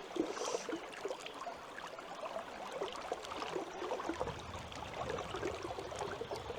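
River water running and gurgling over rocks, a steady fine splashing.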